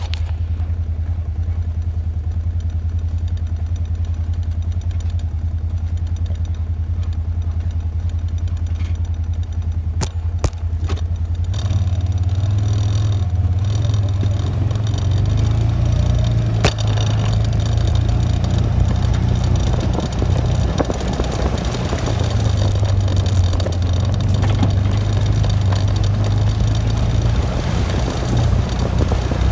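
Small off-road vehicle's engine running steadily at low speed, with the machine rattling as it drives over rough ground. The engine and the rattling get louder about twelve seconds in.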